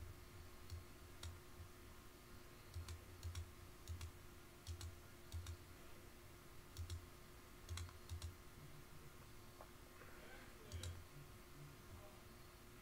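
Faint computer mouse clicks, about a dozen at irregular intervals, some in close pairs, over a low steady hum.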